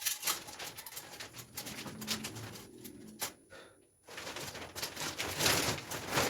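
Handling noises: scattered light clicks and knocks with rustling. They drop away briefly about three and a half seconds in, then return as louder rustling and scraping.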